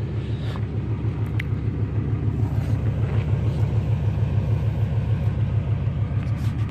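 1993 Chevy Suburban's 5.7-litre 350 TBI V8 with a Crane cam, idling, heard at its single exhaust: a steady low rumble with an even pulse.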